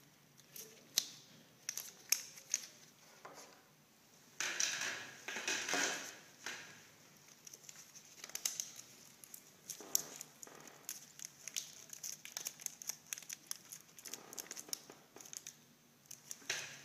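Medical tape and a plastic IV dressing handled by gloved hands as an IV catheter is secured: crinkling, tearing and small clicks, with longer rustling stretches about four to six seconds in.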